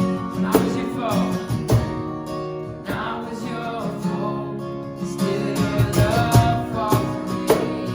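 Contemporary worship music: strummed acoustic guitar chords under a sung melody line that glides in and out across the passage.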